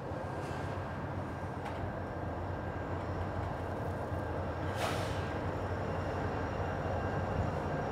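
Diesel freight locomotives approaching with a train of container cars: a steady engine drone and rumble, with a brief burst of noise about five seconds in.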